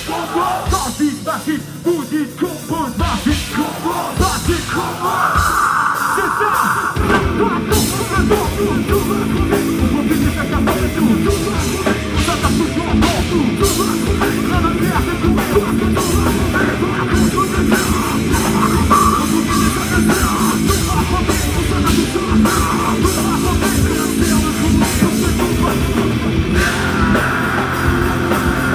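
Rap-metal band playing live: distorted electric guitar, bass and drum kit. It starts sparse and the full band comes in about seven seconds in, then plays on loud and driving.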